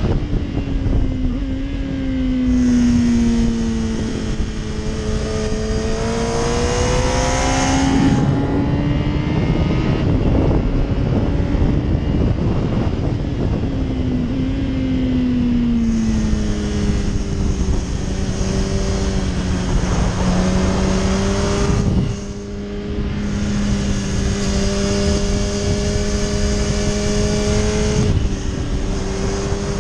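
Onboard sound of a Yamaha R1 RN12's crossplane inline-four engine at speed. Its note drops as the bike slows, holds steady, then climbs again, with a few sudden breaks in the note at gear changes. Wind rushes past the camera for long stretches.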